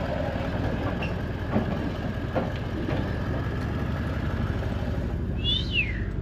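Four-wheel-drive ute's engine idling with a steady low hum, a few light clicks over it. Near the end a short chirp falls in pitch.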